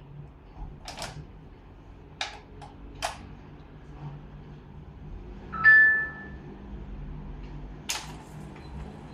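Inkjet printer running its ink-charging cycle after a printhead cleaning: a low steady hum with a few scattered mechanical clicks, and a short beep about six seconds in.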